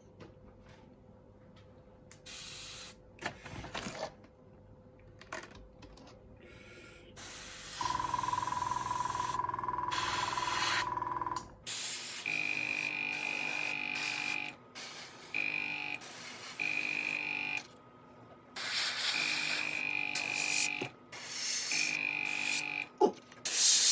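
Airbrush spraying paint in repeated bursts of hiss, most of them carrying a steady whistle. The bursts follow a few seconds of near quiet with a few light knocks.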